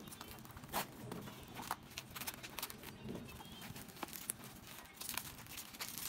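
Quiet, irregular crinkling and rustling of a plastic mailer bag, bubble wrap and cardboard being handled and pulled apart during an unboxing.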